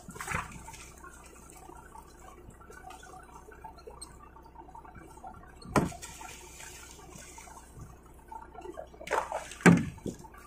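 Water splashing and trickling over a low, steady hum, with one sharp knock about six seconds in and a few thuds near the end.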